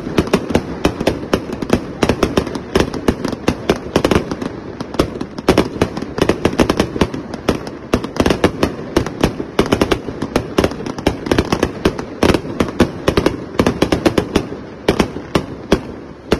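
Vortex Folly, a 1.4G consumer firework cake three-pack of 105 shots, firing continuously: a dense run of launches and sharp aerial reports, several a second, dying away at the end.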